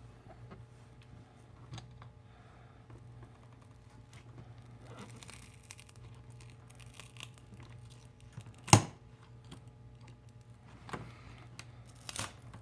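Small handling noises from a smartphone being taken apart with hand tools: scattered light clicks and rustling, with one sharp click about nine seconds in and a few more clicks near the end, over a steady low hum.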